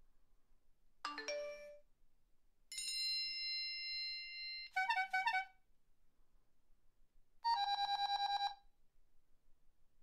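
A run of short electronic mobile-phone alert and ring tones, one after another with short gaps. A quick chime comes about a second in, then a held multi-note tone that runs straight into a rapid pulsing trill. Near the end a second rapid trill lasts about a second.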